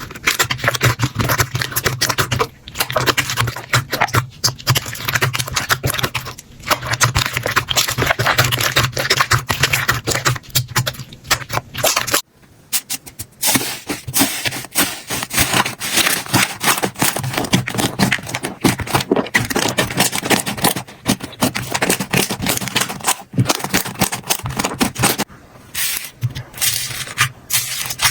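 Slime being squeezed and poked by hand: dense, rapid crackling and popping clicks. About twelve seconds in, the sound breaks off briefly and another batch of slime starts crackling.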